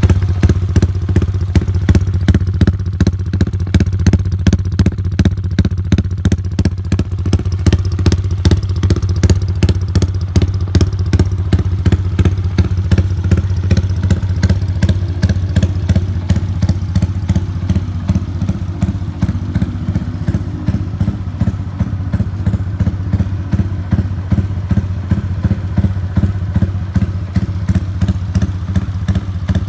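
An engine idling steadily: a low hum with rapid, even pulsing.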